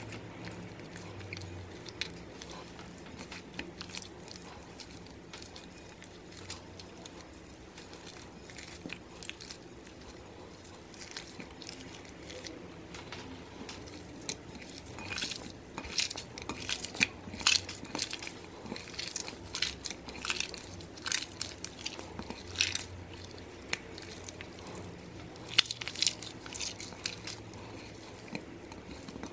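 Yellow slime mixed with chunks of grey clay being squeezed and stretched by hand: small wet clicks and squelches, sparse at first, then coming thick and fast and louder from about halfway through.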